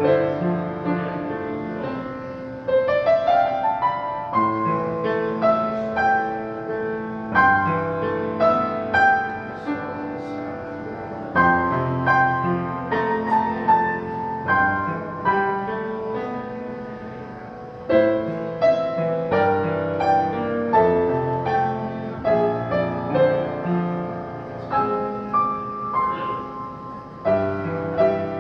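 Solo piano playing the service's opening prelude, several notes sounding together, with a quick rising run of notes about three seconds in.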